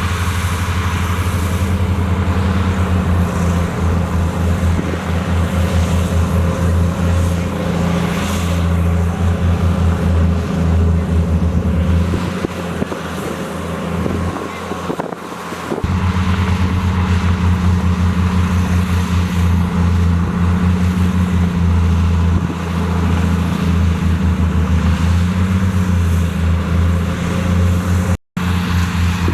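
Heavy diesel engine of an earthmoving machine running with a deep throb. It eases off for a few seconds near the middle, then picks up again.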